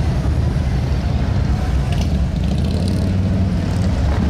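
A line of motorcycles riding slowly past, their engines making a loud, steady low-pitched sound.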